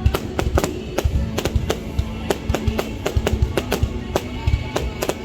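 Fireworks going off in quick, irregular bangs and cracks, several a second, over music playing underneath.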